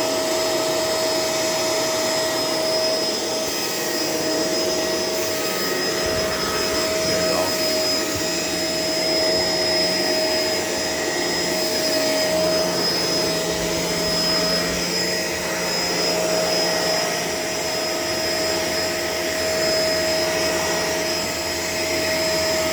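Shark LA702 vacuum cleaner running steadily, a constant motor whine over airflow noise, its low hum shifting a few times.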